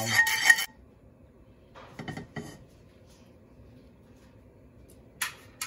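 Wooden chopsticks stirring and scraping in a metal saucepan, stopping under a second in. After that only a faint low background remains, with a few soft knocks about two seconds in and a sharp click near the end.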